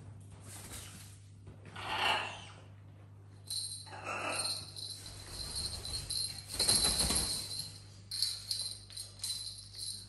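Small jingle bell toy jingling as it is batted about and then carried in a cockatoo's beak, the jingling steady from a few seconds in, with a few short louder knocks and rustles.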